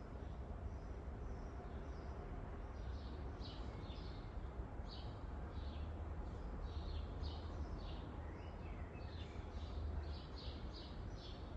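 Rural garden ambience: small birds chirping in many short repeated notes, busier from a few seconds in, over a steady low rumble of background noise.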